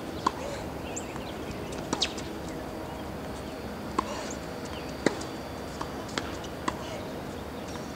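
Scattered sharp pops of tennis balls being struck and bouncing on hard courts, about nine at irregular intervals, over a steady outdoor background hum.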